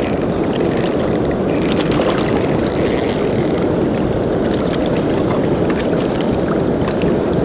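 Steady rush of water pouring through the spillway tailwaters. A high hiss runs over it for the first three and a half seconds, with a short break about a second and a half in.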